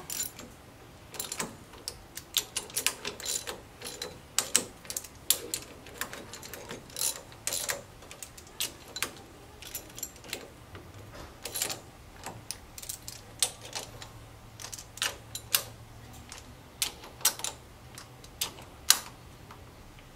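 Hand ratchet clicking in short, irregular runs as a socket snugs down the rocker assembly bolts before they are torqued.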